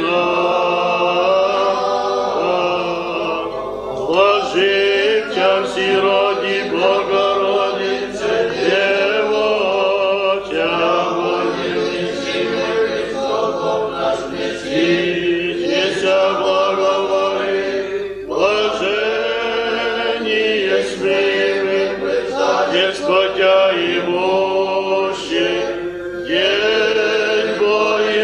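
A choir of men's voices singing Orthodox church chant in long sustained phrases, with short breaks between lines.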